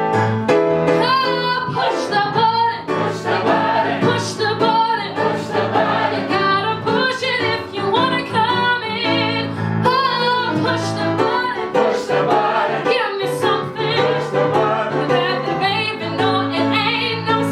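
Female singer performing a musical-theatre number over instrumental accompaniment, her held notes wavering with vibrato.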